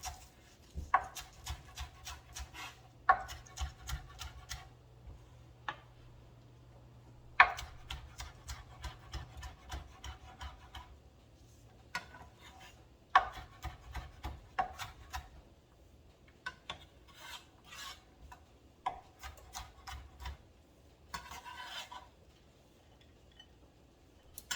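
Kitchen knife chopping scallions into a fine dice on a cutting board: runs of quick strokes lasting a few seconds each, with short pauses between runs.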